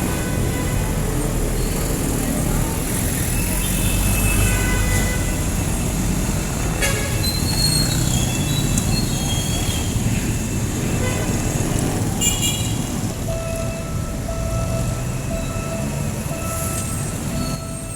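Busy street traffic: a steady low rumble of vehicle engines, with high squeals and toots coming and going over it.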